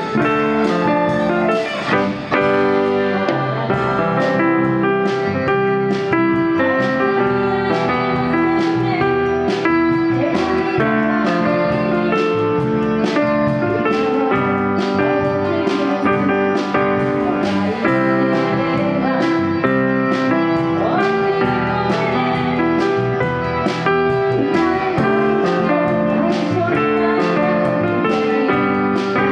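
Live band playing a song: electric guitar and electric bass over a steady beat, with a woman singing into a microphone.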